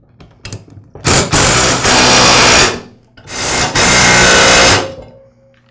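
Cordless impact driver hammering nuts tight on tiller tine-holder bolts. It runs in two bursts of about a second and a half each, the first about a second in and the second just past three seconds.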